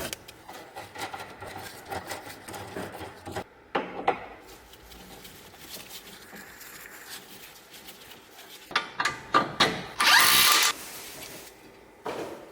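Workshop handling and tool sounds on steering rack parts: scattered clicks and clatter, a run of sharp knocks about nine seconds in, then a short loud hiss.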